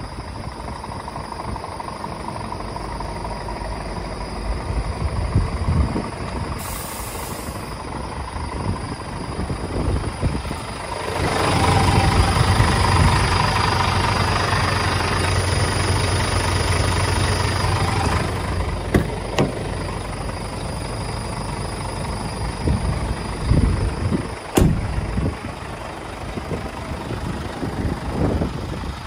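Scania G490 tipper truck's diesel engine idling steadily. It grows louder and fuller for about seven seconds in the middle, where the sound is picked up from under the chassis. A couple of sharp knocks come later on.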